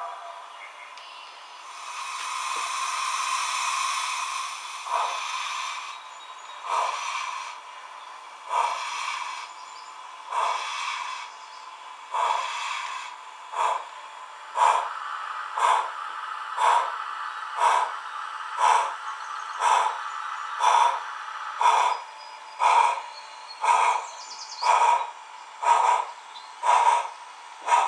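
Model steam locomotive's onboard sound unit: a hiss of steam, then exhaust chuffs as it starts off. The chuffs come about every two seconds at first and speed up to about one a second.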